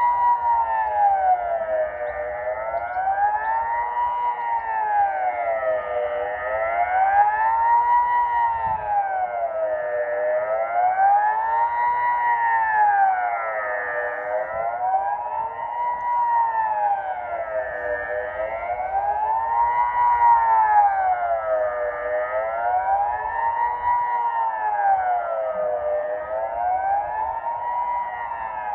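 Civil defence siren sounding a continuous wailing tone that rises and falls about every four seconds: the general-alarm warning signal, sounded here as a scheduled test alarm.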